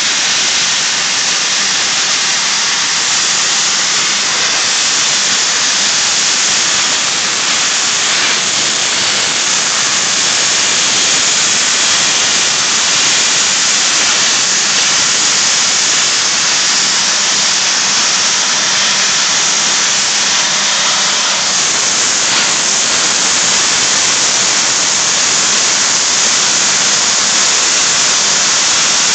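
Low-pressure soda blaster nozzle firing compressed air and baking-soda media onto a stainless steel heat exchanger plate: a loud, steady, high hiss that does not let up, as the blast strips scale from the plate.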